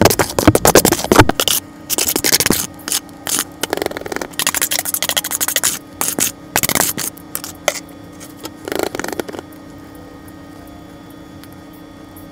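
Wet dyed gym chalk paste being scraped out of a plastic bowl into silicone molds: a run of short, wet scrapes that stops about three-quarters of the way through.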